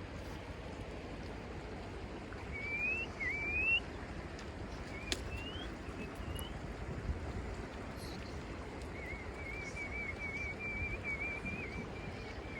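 Steady rush of a flowing river, with a few short rising whistled notes and, from about nine seconds in, one long wavering whistle.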